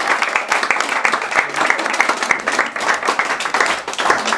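A small group of guests applauding, many hands clapping at once, loud and steady.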